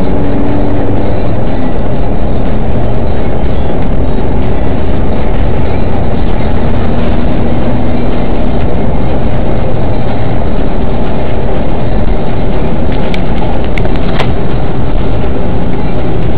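Steady, loud engine and road noise of a moving car, with a few faint clicks near the end.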